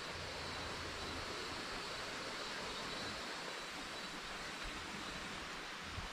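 A river's steady rushing, an even wash of water noise with no distinct events.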